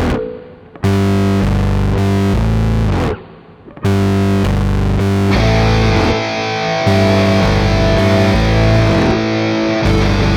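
Rock music with distorted electric guitar: chords held in stop-start blocks with two brief breaks, then a fuller band with cymbals coming in about five seconds in.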